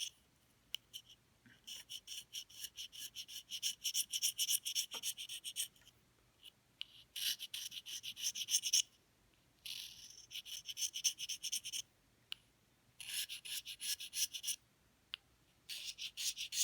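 Cane of an English horn reed blank being scraped in quick, rasping back-and-forth strokes, a rough scrape taking off the bark. The strokes come in five runs, each lasting one to four seconds, with brief pauses between them.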